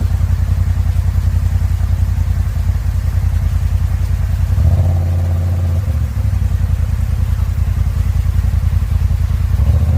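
Off-road vehicle's engine running steadily with a low, pulsing rumble, its note rising briefly about halfway through and again near the end as the throttle is opened.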